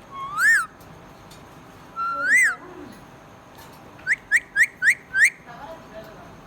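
A pet parrot whistling: two drawn-out whistles that rise and fall in pitch, then a quick run of five short upward chirps at about four a second.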